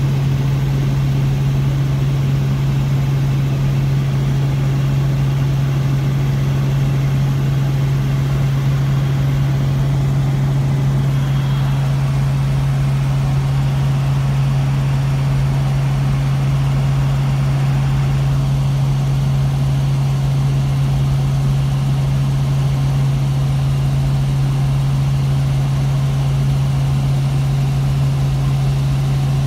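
Helicopter in flight: a steady engine and rotor drone with a strong, unchanging low hum.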